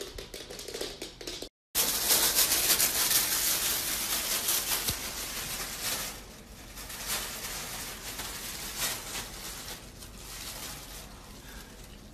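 A piglet tugging and dragging sheets of paper towel on carpet, making crinkly rustling and tearing. The rustling is loudest for the first few seconds, then thins to scattered crackles.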